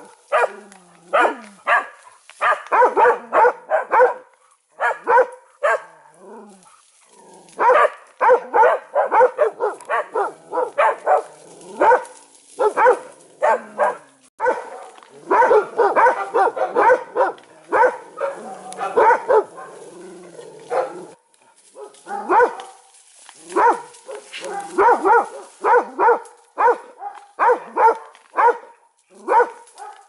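Animal barking in rapid runs of short calls, several a second, with brief pauses between runs.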